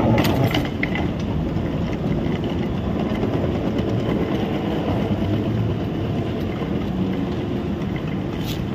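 Airport moving walkway running with a steady mechanical rumble and rattle from its grooved metal treads. There are a few sharp clicks near the start.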